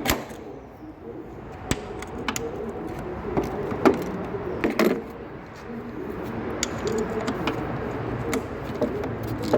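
Scattered metallic clicks and knocks of hand tools working the bolts on a battery box's top plate, with a low steady hum in the background in the second half.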